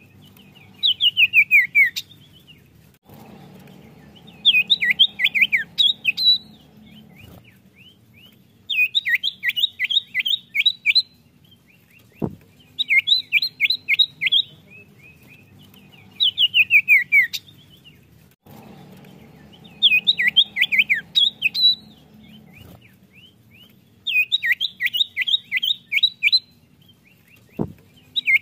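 Common iora singing in phrases of about two seconds, each a fast series of sweeping chirps, some falling and some rising at the end, repeated about every three to four seconds with short pauses between.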